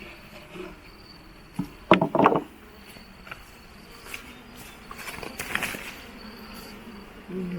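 Insects chirping in a thin high tone that starts and stops, with a short loud clatter of a few sharp knocks about two seconds in.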